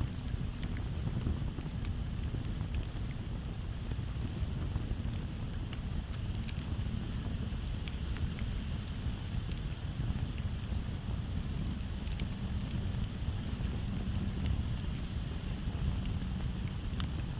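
Campfire crackling with many small, sharp pops scattered irregularly over a low, steady rumble, with crickets trilling steadily in the background.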